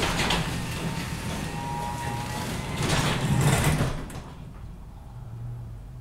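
Genie belt-drive garage door opener running as it raises a sectional garage door, with the motor's steady hum and the door panels rolling up their tracks. The sound swells just before it drops off about four seconds in, as the door reaches its newly programmed open limit and the motor stops.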